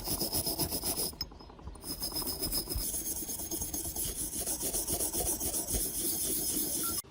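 Rapid back-and-forth scraping strokes of hand abrading, such as filing or sanding a part during restoration, with a short lull a little after a second in and a sudden stop near the end.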